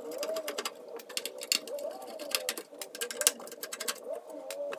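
Rapid, irregular light metallic clicks and taps as screws are worked out of a motherboard inside a steel PC case. A faint wavering tone runs underneath.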